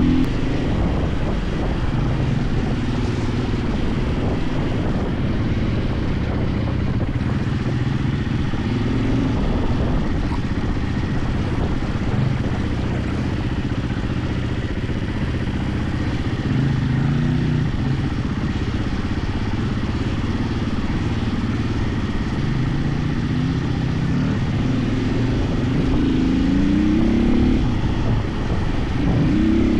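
KTM 450 EXC single-cylinder four-stroke enduro motorcycle engine running at low, fairly steady revs, picking up revs a few times, mostly near the end.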